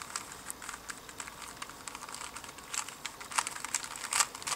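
A 3x3 Rubik's speedcube being turned quickly through an algorithm. Its plastic layers make a rapid, irregular run of clicks and clacks, with a few louder clacks in the second half.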